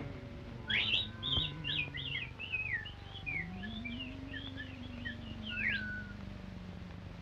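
Early sound-cartoon soundtrack: a run of quick, high chirping whistles, twittering like a bird and ending in a falling swoop, over slow sliding low tones, one of which rises and then sinks.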